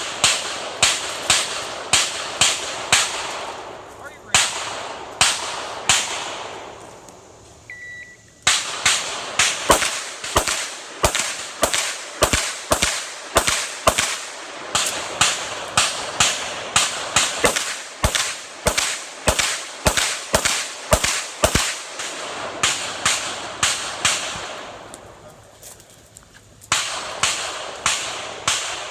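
Pistol firing strings of quick shots, about one to two a second, each shot sharp with a short echoing tail, with brief pauses between strings.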